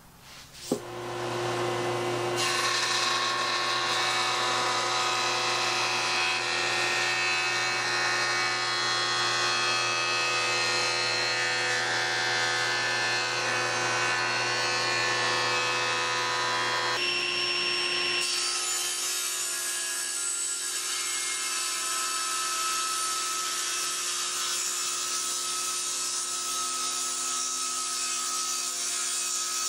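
Jointer running as a wood leg blank is fed across its cutterhead, then, with a sudden change about 17 seconds in, a table saw running and ripping a leg blank along its fence. Both are steady machining sounds.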